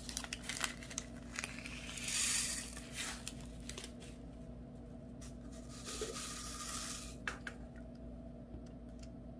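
Acrylic diamond-painting drills poured from a small plastic bag into a ridged plastic tray and rattling in it: a hissing rattle in two spells, the louder about two seconds in and another from about five to seven seconds in, with scattered small plastic clicks.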